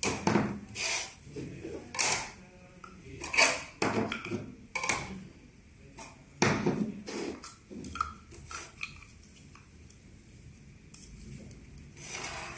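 Plastic parts of a true-union ball valve being handled and fitted together by hand: irregular knocks, clicks and scrapes of hard plastic on plastic, sparser in the last few seconds.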